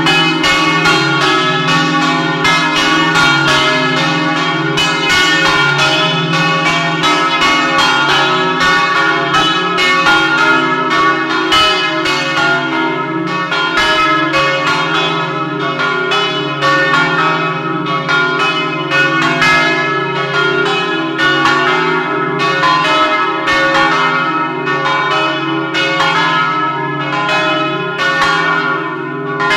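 Church bells swinging in a full electric 'doppio' peal, heard close up inside the belfry: loud, overlapping clapper strikes in quick succession over a steady ringing hum, continuing without a break.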